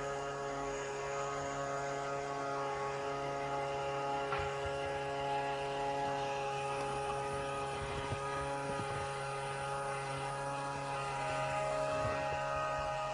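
Motorised LEGO pinball machine running: a steady hum with several fixed tones from its motors and gearing, and a few faint knocks.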